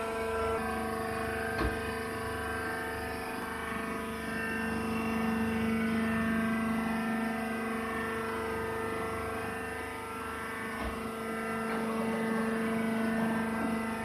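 Hydraulic cotton seed baler's motor and pump running with a steady, even hum.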